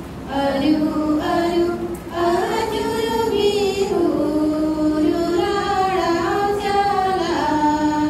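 Voices singing a slow melody in long held notes, with short breaks between phrases.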